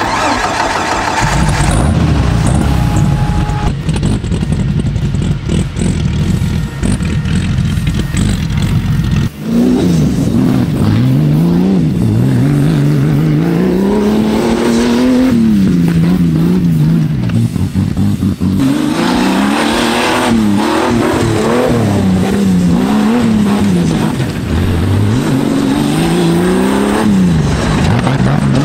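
Off-road race buggy's engine under hard driving: a low rumble for the first nine seconds, then the engine note climbs and drops over and over as it accelerates, backs off and picks up again.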